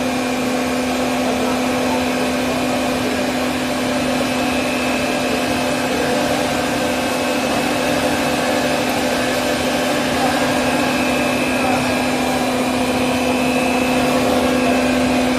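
WT55/75-1250mm automatic stretch film machine running: a steady machine hum with one strong low tone and a fainter high whine over an even whirr.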